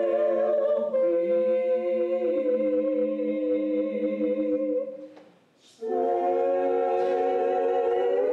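Three voices, a man and two women, singing a cappella in close harmony, holding long chords without lyrics being made out. Just past the middle they stop for about a second, then come back in on a new sustained chord.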